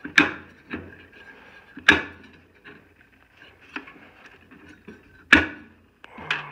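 Sharp clacks and knocks from a metal squirrel-cage fan wheel in an RV furnace as it is wrenched back and forth on its motor shaft: three loud clacks with several lighter knocks between. The wheel is stuck on a rusted shaft.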